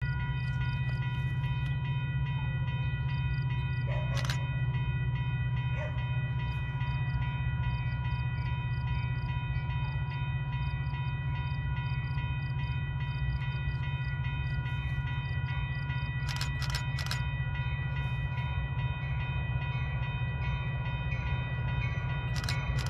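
Metra commuter train approaching in the distance: a steady low diesel rumble with a constant high whine of several tones, and a few sharp clicks about four seconds in and again later.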